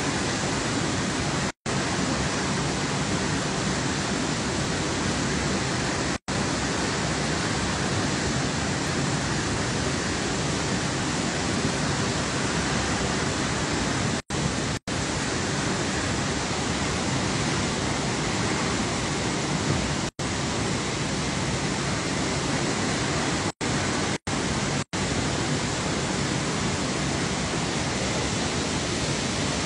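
Floodwater pouring over a full dam's concrete spillway: a steady, unbroken rush of falling water. The sound drops out for an instant about eight times.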